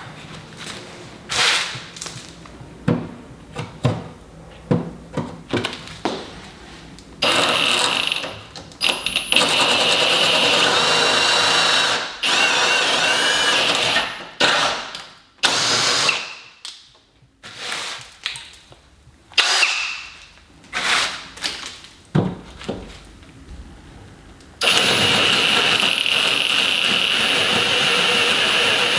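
Electric drill boring holes through a wooden table top with a large bit, starting in short bursts, then running steadily under load for several seconds at a time, twice.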